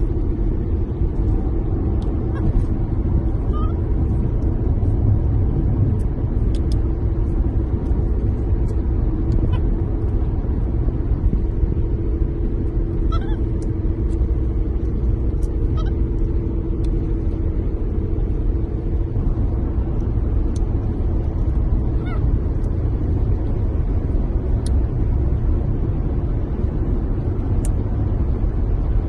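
Steady low rumble and hum of a moving car, heard inside the cabin, with scattered small clicks and a few short high chirps.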